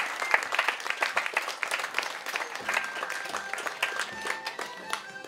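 Audience applauding, the clapping thinning out as medieval-style instrumental music with a steady low beat begins about halfway through.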